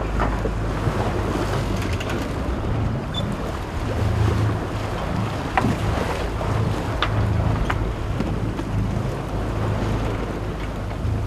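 Wind buffeting the microphone over the wash of choppy sea waves, recorded from a boat under way, with a few sharp clicks in the second half.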